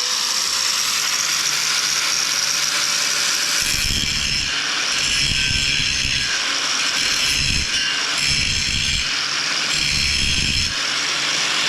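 Angle grinder running and grinding ridges off steel, a loud steady whine with heavier grinding pulses about once a second from about a third of the way in.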